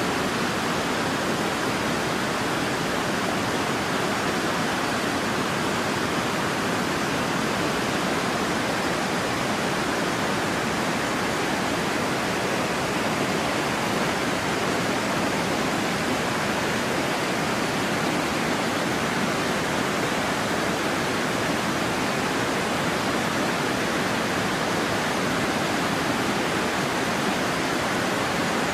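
Steady, unbroken rushing of a fast mountain stream.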